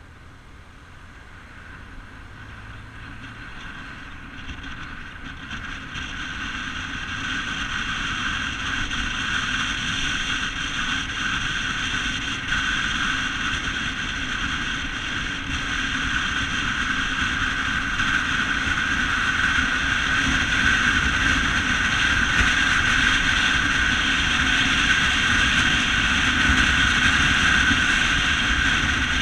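Steady wind and road noise from a moving vehicle, growing louder over the first several seconds as it picks up speed and then holding even.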